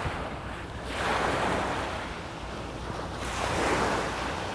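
Small bay waves washing up onto a sandy beach, swelling and falling twice, with some wind on the microphone.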